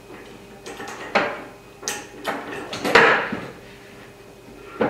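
Bar clamp being slid into place and tightened across the bottom of a wooden cabinet box: a series of knocks, clicks and scrapes of the clamp against the wood, the loudest about three seconds in.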